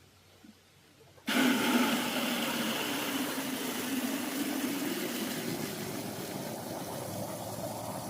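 Water gushing hard from a tap into a jug, turned on suddenly about a second in and running steadily.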